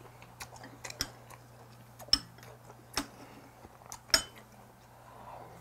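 Metal spoon clinking against ceramic bowls while scooping food: a few sharp clinks about a second apart, the loudest about two and four seconds in.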